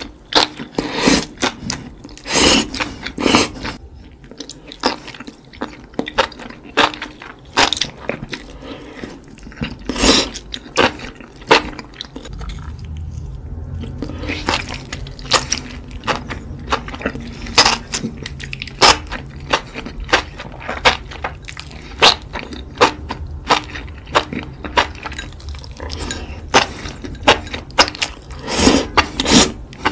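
Close-miked eating of enoki mushrooms in a wet, saucy dressing: irregular slurps and chewing, with occasional clicks of chopsticks against a glass bowl.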